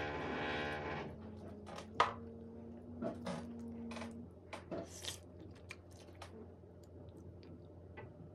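Wooden chopsticks and a wooden spoon clicking and scraping against a ceramic bowl while someone eats a noodle stew, with scattered sharp clicks, the loudest about two seconds in. A steady hum with many overtones stops about a second in.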